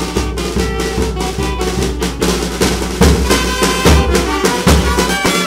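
Small brass street band playing: bass drum and snare keep a steady march-like beat under trombone and other horns holding melody notes. The bass drum strokes come in heavier about three seconds in.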